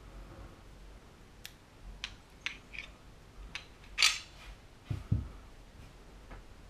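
Metal parts of a pistol being disassembled by hand: several light clicks as the barrel and guide rod are worked out of the slide, and a louder metallic scrape about four seconds in. About a second later come two dull thuds as the parts are set down on the mat.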